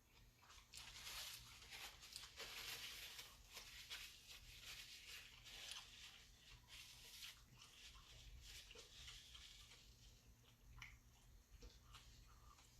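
A person eating close to the microphone: faint chewing and crunching with small mouth clicks, loudest in the first half.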